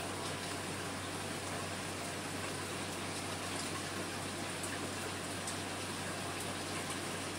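Aquarium water running steadily, a continuous splashing trickle like a filter return or overflow, over a low steady hum.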